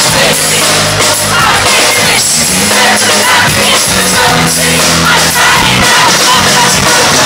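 Live pop-rock band playing in concert, heard loud from the audience: drums, guitars and keyboard under a male lead vocal, with crowd noise mixed in.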